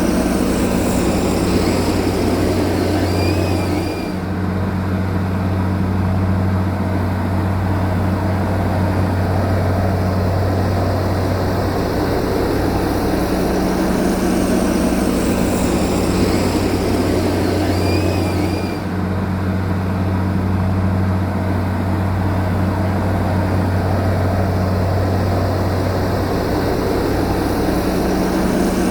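Heavy diesel engine of a bulldozer running steadily at a constant speed, with a faint short squeak twice. The same stretch of sound repeats about every fifteen seconds.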